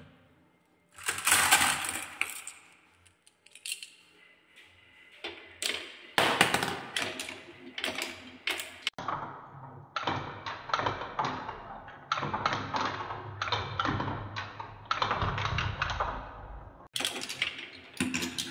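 Many glass marbles rolling and clattering along wooden marble-run tracks and spirals: a dense run of quick clicks and rattles as the marbles knock against the wood and each other.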